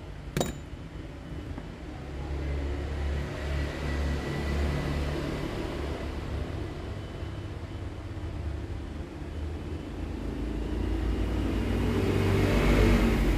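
Low, uneven background rumble that swells louder near the end, with one sharp click about half a second in.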